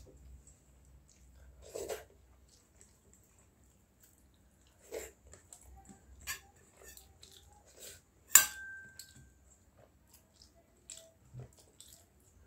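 Scattered chewing and mouth sounds of someone eating by hand, with fingers working in stainless steel bowls and a plate. The loudest sound is one sharp metal clink about eight seconds in, ringing briefly.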